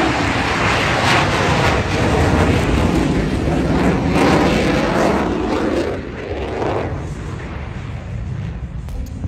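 Blue Angels F/A-18 Super Hornet jets taking off, their General Electric engines making a loud rushing jet noise that drops off about six seconds in.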